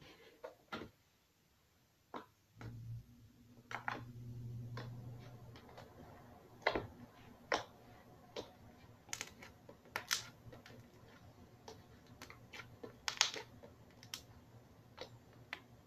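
White slime being kneaded and stretched by hand on a mat, giving irregular small clicks and pops. A steady low hum sets in about three seconds in.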